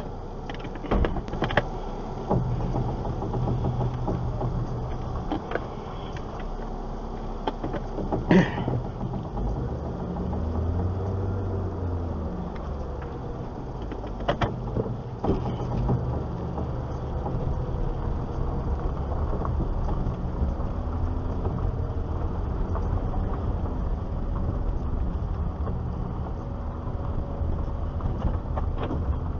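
Car engine and road noise heard from inside a car as it turns around and drives slowly. The engine pitch rises and falls a few times about ten seconds in. A few sharp knocks sound over the rumble, the loudest about eight seconds in.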